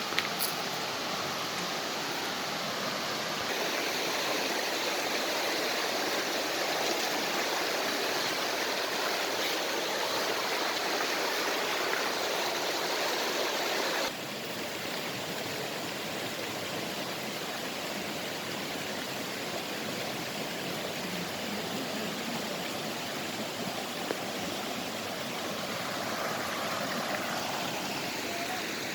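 Creek water running steadily, an even rushing noise; it drops a little in level suddenly about halfway through.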